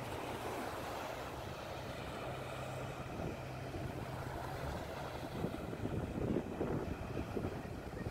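Low steady drone of a Coast Guard boat's engine carried across open water. About five seconds in, wind starts buffeting the microphone in gusts.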